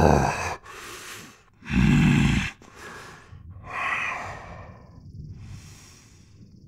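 A man's heavy, angry breathing: two loud, forceful huffs about two seconds apart, with quieter breaths between them and softer breathing toward the end.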